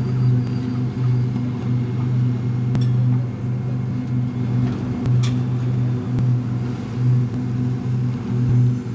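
A construction machine running with a steady low hum that swells and dips in level, with a brief tick about five seconds in.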